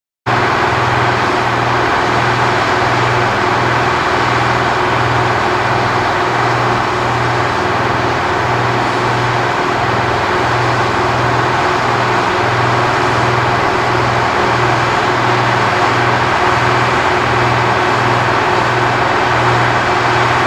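Steady, loud drone of engines running on a jet flight line, with a low throb repeating about once a second. It starts abruptly just after the beginning.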